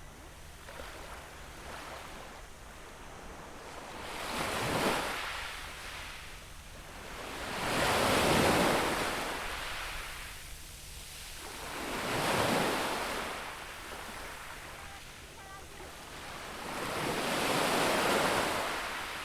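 Sea waves breaking and washing up on a beach shore, four surges in turn, each building and falling away over a few seconds.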